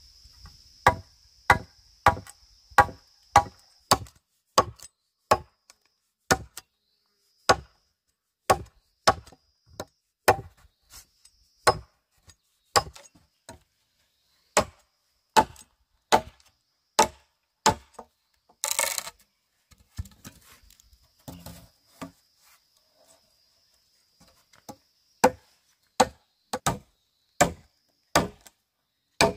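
A blade chopping into bamboo: sharp chops, about two a second, in runs with short pauses between them. A brief rasping sound comes about two-thirds of the way through.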